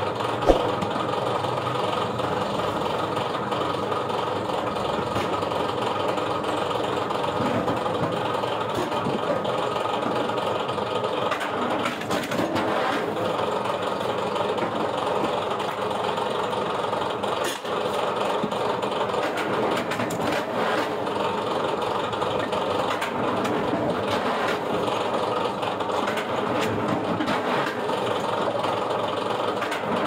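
Motor of a small wheeled firewood splitting machine running steadily as logs are split against its wedge, with a few short knocks of wood.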